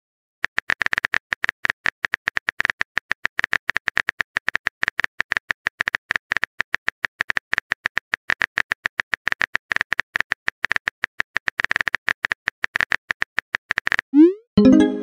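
Phone keyboard key-tap click sound effects, several a second in an uneven rhythm, as a text message is typed out. Near the end the clicks stop and a short rising swoosh and a brief pop follow as the message is sent.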